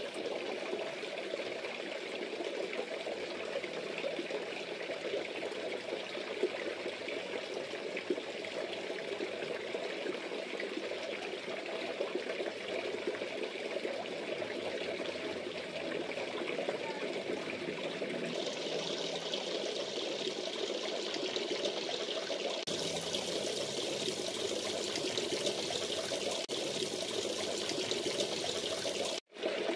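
Water pouring and trickling steadily into a fish pond, a continuous splashing with bubbles at the surface. The sound gets brighter and hissier about two-thirds of the way through and drops out for an instant near the end.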